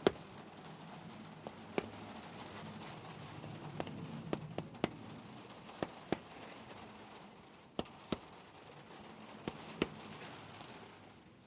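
Light taps on the stuck camshaft bearing caps of a VW 16v cylinder head, about a dozen sharp clicks spaced a second or so apart, often in pairs, to free caps held by gummy oil.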